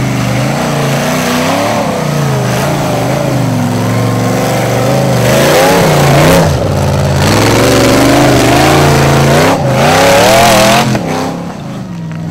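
Ford-powered rock bouncer buggy's engine revving hard over and over as it climbs a steep rocky hill, its pitch rising and falling with the throttle. It gets louder about halfway through as the buggy comes close, then drops away near the end.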